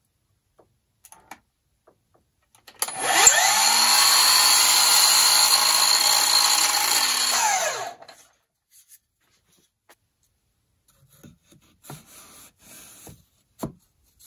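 Milwaukee cordless 10-inch sliding miter saw spinning up, running for about five seconds as it trims a thin sliver off the end of an MDF panel, then winding down. A few faint knocks and clicks follow near the end.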